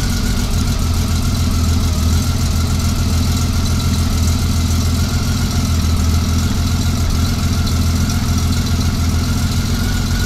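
Honda Valkyrie's flat-six engine idling steadily while its six carburetors are being synchronized on vacuum gauges.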